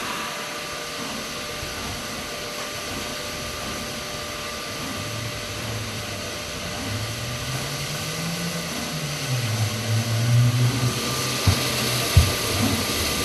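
Steam locomotive 71000 Duke of Gloucester, a three-cylinder BR Standard Class 8, standing with a steady hiss of steam and a faint whine, while a low drone rises and falls. Near the end come two sharp exhaust beats a little under a second apart as it starts to move off.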